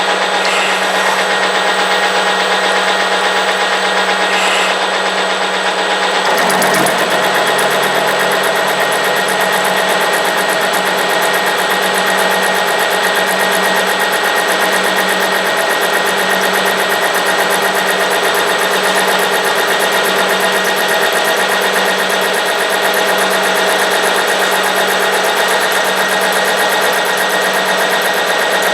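CNC milling machine running, its cutter taking the square knuckle of a veteran car's steel drive shaft down to size. Several steady whines sit over a dense hiss. About six seconds in a deeper rumble joins, with a slow pulsing that repeats every couple of seconds.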